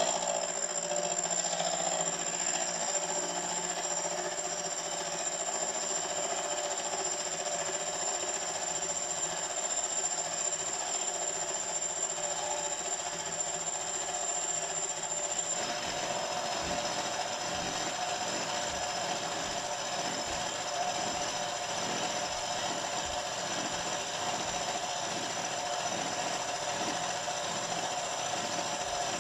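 Bench milling machine running steadily with its face-milling cutter spinning. About halfway through, the cutter starts a facing cut across the top of the cylinder block casting, adding an uneven cutting noise to the steady motor sound.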